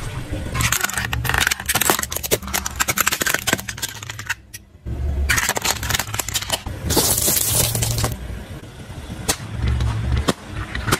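A car tyre rolls slowly over objects and crushes them, giving dense runs of rapid crackling and popping, with a short loud hiss about seven seconds in and scattered single cracks near the end. A low engine hum runs underneath.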